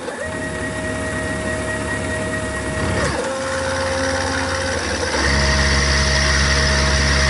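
Milling machine running a 1/4-inch ball end mill on a bevel pass in cast iron: a steady motor whine that dips and glides briefly about three seconds in, then returns with a louder low hum for the last two seconds.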